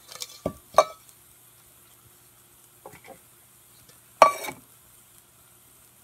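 A few light metal taps and clinks of metal cookware being handled. The loudest is a ringing metal clink about four seconds in.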